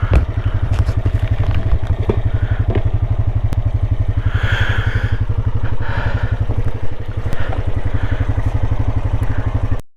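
Small vehicle engine running steadily with an even low pulse, with a few brief scraping or clattering sounds in the middle. It cuts off suddenly just before the end.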